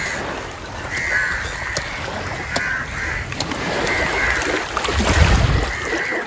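A flock of crows cawing again and again, some calls overlapping, with a low rumble about five seconds in.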